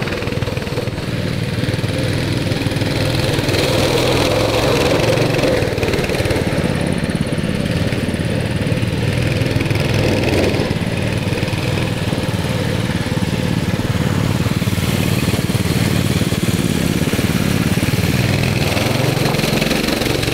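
Three Tillotson 212 small single-cylinder engines of a three-engine mini bike running under throttle, the pitch rising near the end as they rev up.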